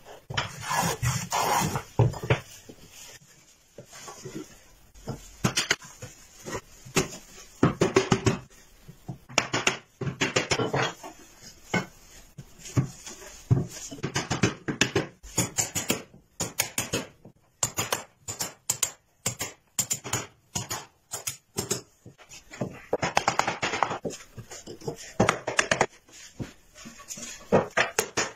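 Hand woodworking on a bench: a hand tool scraping and shaving along wood, broken by many short taps and knocks on wooden parts, coming thick and fast in the middle and again near the end.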